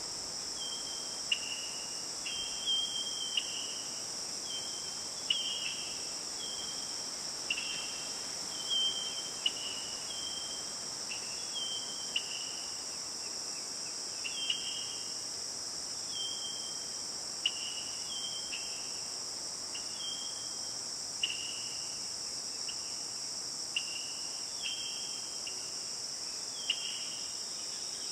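Steady high-pitched chorus of crickets or similar insects, with a short two-note chirp, dropping slightly in pitch, repeated about once a second.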